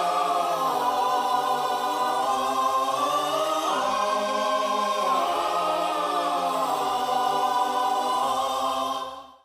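Background music of sustained, layered choir-like voices that fades out near the end.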